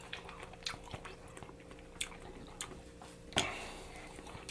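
A person chewing broccoli close to the microphone: small wet crackling clicks, with one louder crunch about three and a half seconds in.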